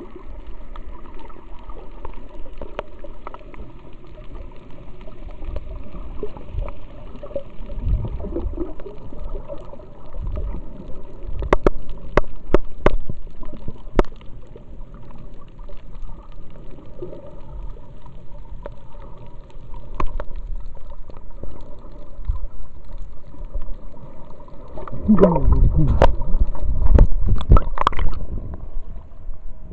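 Muffled underwater noise heard through an action camera's waterproof housing: a low rumble of water with a few sharp clicks about twelve seconds in. Near the end, louder bubbling and splashing as the camera breaks the surface.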